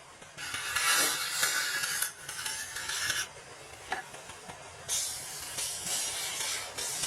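Wood being worked with an abrasive, a rough rubbing hiss in two long strokes, the second starting about five seconds in.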